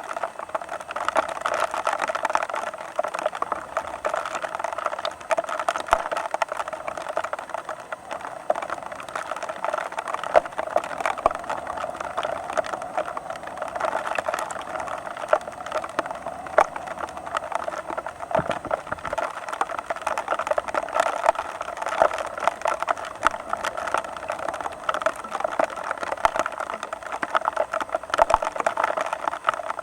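Steady rain pattering, a dense crackle of many individual drop hits.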